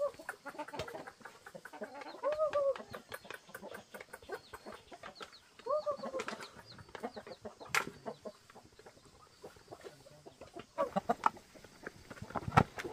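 Chickens clucking as they feed, with two drawn-out calls that rise and fall about 2 and 6 seconds in. Many short sharp taps run through it, thickening near the end, as beaks peck grain from a plastic bowl.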